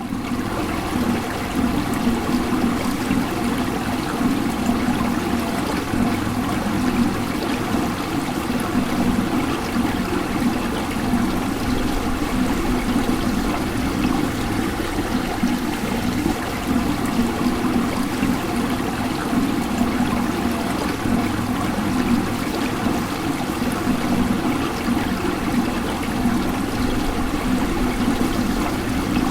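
Water fountain running, its water splashing steadily without a break.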